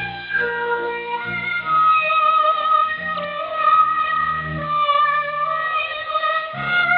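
Music from a Voice of Korea shortwave broadcast, a melodic instrumental piece with changing sustained notes. It is heard through a shortwave receiver with narrow bandwidth, so the sound is thin and has no high treble.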